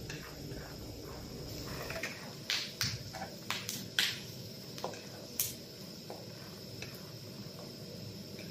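Peanuts deep-frying in hot oil: a steady sizzle with scattered sharp pops and crackles, thickest between about two and five seconds in.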